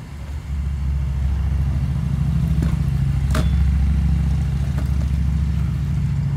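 Steady low engine rumble, like a vehicle idling, that builds up about half a second in and keeps going, with a few short sharp clacks over it.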